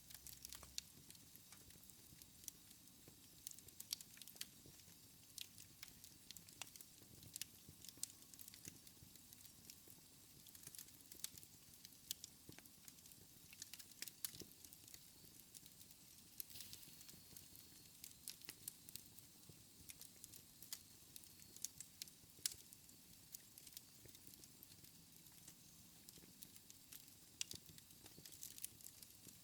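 Wood fire crackling in a fireplace: faint, irregular pops and snaps over a steady soft hiss.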